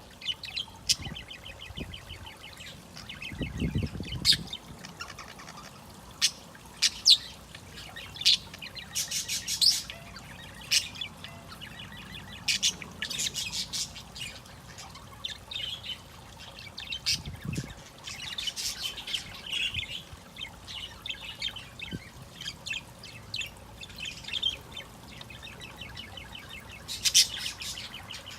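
Male budgerigar warbling and chattering in courtship song, a busy run of rapid chirps, squawks and sharp clicks. Two low thuds, one a few seconds in and one past the middle.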